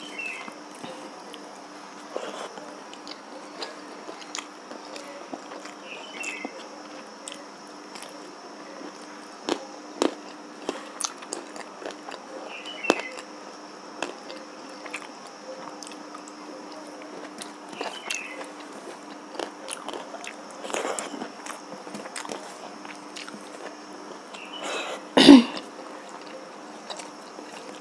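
Close-miked eating sounds: fingers squelching rice and dal on a steel plate, with chewing and small mouth clicks, over a steady faint hum. One louder thump comes near the end.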